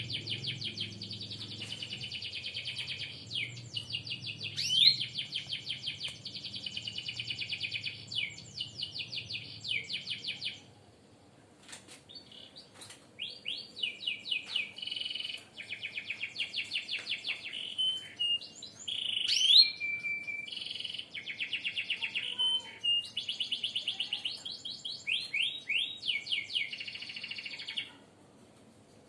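Birds singing in long, fast trills of rapidly repeated high notes, with a pause of a second or two partway through. Now and then there is a sharp rising whistle, loudest about a third and two-thirds of the way in.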